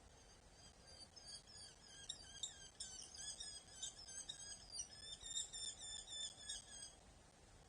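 A bird calling a rapid run of short, high, chattering notes, starting about a second in and stopping about seven seconds in, over a faint steady hiss.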